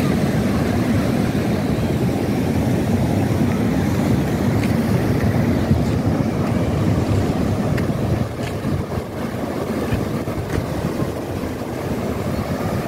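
Ocean surf breaking and washing in over the shallows, with wind rumbling on the microphone. It eases a little about eight seconds in.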